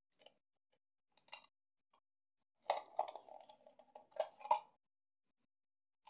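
Clear plastic storage case handled and a stainless folding multi-tool taken out of it: a few light clicks, then a scraping rattle of metal against plastic about halfway through and a sharper clatter a second later.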